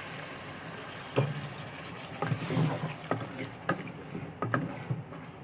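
A spoon stirring mutton korma in a cooking pot just after water has been poured in: liquid sloshing, with irregular knocks of the spoon against the pot about once or twice a second, starting about a second in.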